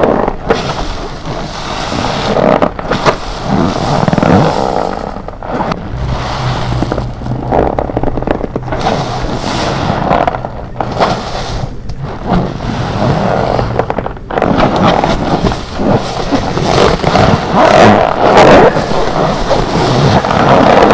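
A sponge soaked with detergent and cream cleanser being squeezed over and over in gloved hands: wet squelching and rubbing, with the gloves' own rubbing sound strong, broken by short pauses between squeezes.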